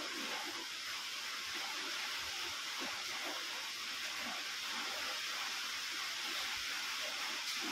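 Steady, even hiss throughout, with faint scattered low rustles.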